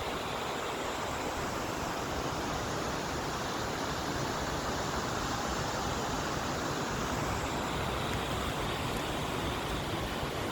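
Steady rush of water from a waterfall, an even hiss-like roar with no break.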